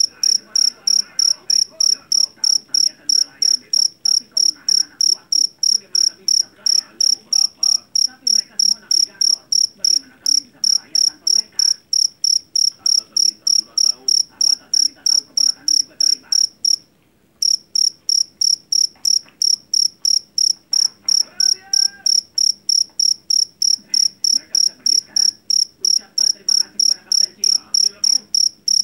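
Jangkrik jeliteng (Javanese black field cricket) chirping loudly and shrilly in rapid, evenly spaced high-pitched pulses. The pulses break off for a moment a little over halfway through, then resume.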